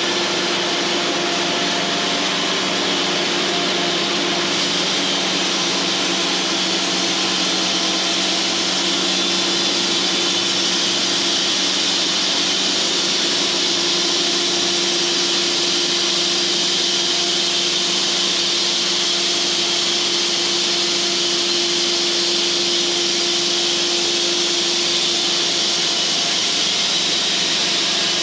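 Cooks band sawmill running steadily with its blade cutting through a log: a constant machine hum under the noise of the cut. The sound grows a little brighter about four seconds in.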